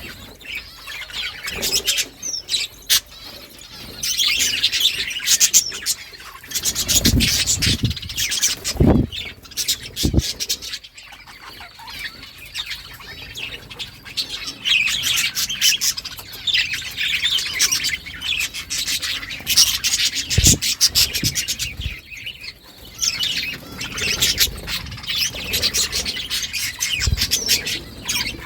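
A group of budgies (budgerigars) chirping and chattering without a break, a busy mix of quick warbles and tweets, with a few soft low thumps here and there.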